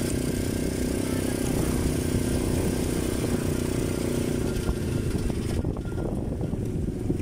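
A motor vehicle engine running steadily under a hiss. About five and a half seconds in, the hiss drops away suddenly and the engine sound turns rougher and more uneven.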